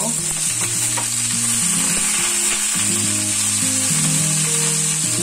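Halved cherry tomatoes sizzling steadily in hot oil with browned sliced garlic in a frying pan, just after being tipped in.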